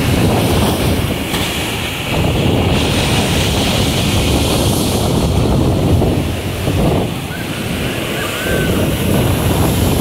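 Rough storm surf: waves breaking and crashing against a concrete breakwater, with wind buffeting the microphone.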